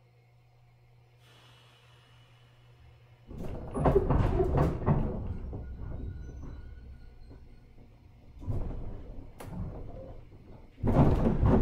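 Inside a JR 103 series 1500 electric train carriage as it sets off: a faint steady hum, then from about three seconds in loud clunking and rattling of the car, fading away, with another loud burst near the end.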